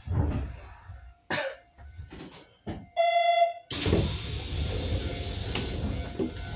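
Train cab sounds during a station stop: a few knocks and thuds, then a single electronic beep about three seconds in, followed by a sudden steady hiss.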